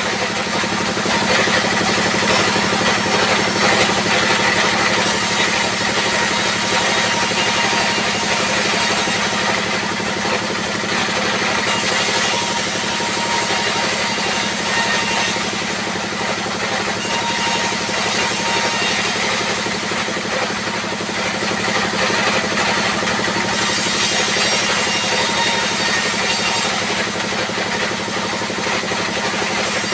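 Sawmill band saw running without a break and ripping wooden boards as they are fed through its blade, a high sawing hiss over a steady machine hum. The hiss strengthens and eases several times as cuts begin and end.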